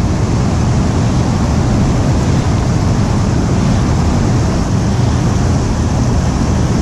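Loud, steady rush of fast-flowing stream water.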